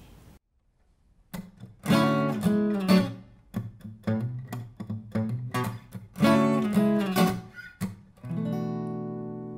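Solo acoustic guitar strumming a rhythmic intro in short, sharp chord hits, starting after a moment of silence about a second in. Near the end a final chord is left ringing and slowly fades.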